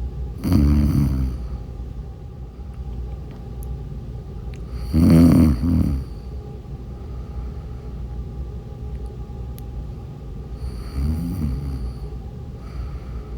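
A woman snoring in her sleep: three snores about five seconds apart, the middle one loudest and the last one faintest, over a steady low background hum.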